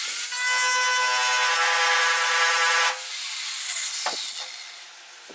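An angle grinder with a metal shrinking disc spinning against the sheet-steel body panel with a hissing rub and a steady whine, to bring a high spot down. About three seconds in it comes off the metal and the whine falls as the disc spins down, followed by a couple of light knocks.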